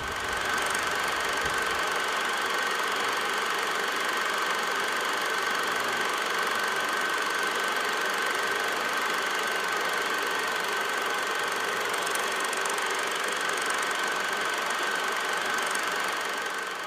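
A steady machine-like whir over hiss, with one constant high tone, fading out near the end.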